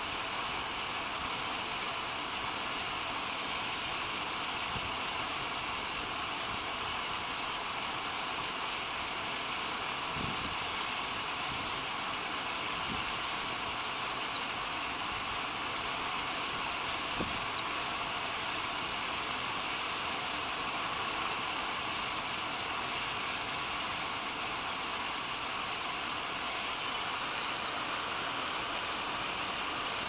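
Steady, even outdoor background hiss with a few faint, brief high chirps.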